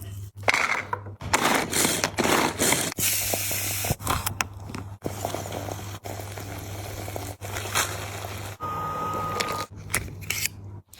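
Close-miked eating sounds: a run of wet smacking, crackling and scraping noises from chewing and handling food, over a low steady hum. A brief steady tone sounds about three quarters of the way through.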